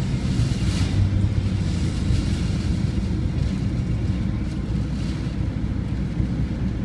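Steady low rumble of a car driving, heard from inside the cabin in typhoon weather, with a swell of wind or rain hiss about a second in.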